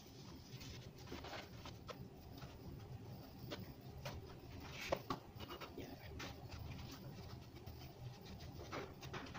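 Hand wiping and rubbing dust off the surface of a dried concrete weight plate, a run of short, irregular scraping strokes, with one sharp knock about five seconds in.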